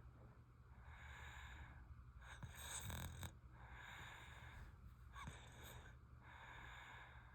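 A sleeping baby breathing faintly with soft snores, a breath about every one and a half to two seconds, and one louder snore about three seconds in.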